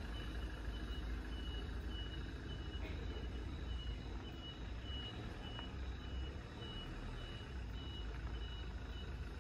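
A vehicle's reversing alarm beeping at a steady pace of about two beeps a second over a low rumble, stopping near the end.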